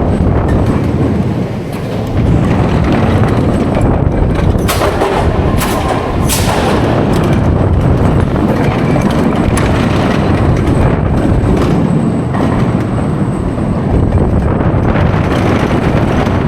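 Intamin spinning coaster car running on its track in boost mode, heard on board as a loud, steady rush and rumble, with a few sharp clatters about four and a half to six and a half seconds in.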